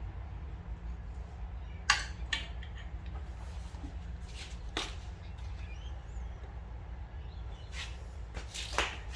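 Scattered light clicks and knocks from handling strut parts as a new rubber dust boot is fitted onto a Toyota Corolla strut assembly, over a steady low hum.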